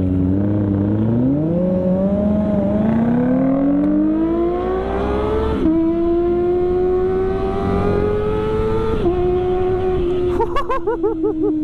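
Kawasaki ZX-25R four-cylinder engine through an aftermarket CLD exhaust, accelerating hard with rising pitch. The pitch drops abruptly at an upshift about five and a half seconds in and climbs again. It shifts again about nine seconds in, then eases off with slowly falling pitch.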